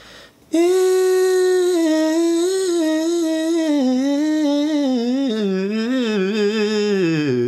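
A man's voice sings a fast wordless vocal riff. It opens on a held note about half a second in, then runs through quick wavering turns that grow busier in the middle and slide downward near the end. This is a learner's attempt at a very hard run, and its middle section is still a blur to the singer.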